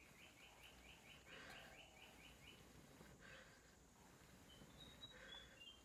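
Faint bird calling: a quick run of about a dozen short chirps over the first two and a half seconds, then a few high whistled notes near the end, over near silence.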